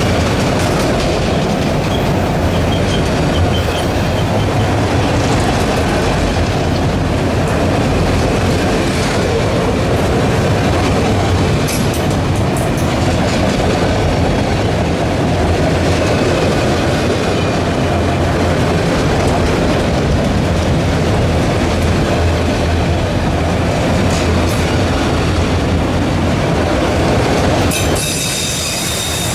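Freight train cars rolling past at close range: a steady rumble of wheels on rail with clickety-clack and a faint high wheel squeal now and then. The rumble eases slightly near the end.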